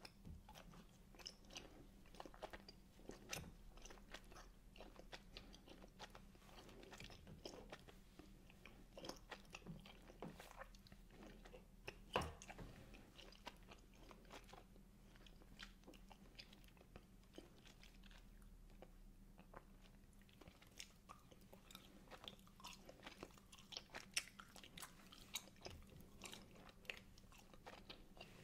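Quiet, close-up chewing of wine gums (firm gummy sweets): an irregular run of small wet mouth clicks and squishes, with one sharper click about twelve seconds in.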